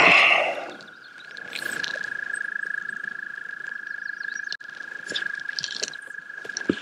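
A frog's long, steady trill on one high pitch, swelling a little and fading slightly, with a loud rush of breath at the very start.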